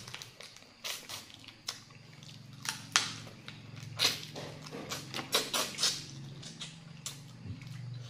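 Close-up eating sounds of blue swimming crab: irregular wet clicks, crunches and smacks of biting and chewing the meat off the shell, over a steady low hum.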